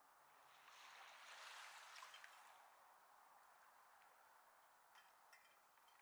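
Faint wash of water lapping at a pebble shore, swelling about half a second in and fading away a couple of seconds later, followed by a few faint clicks.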